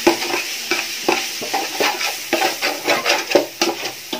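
A metal spatula scraping and knocking against a large metal pot as scrambled egg and vegetables are stirred together, in repeated strokes about three a second, over the steady sizzle of the food frying.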